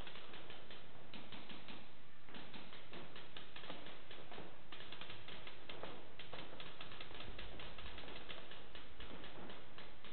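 Paintball markers firing in rapid, irregular strings of sharp pops, many shots a second.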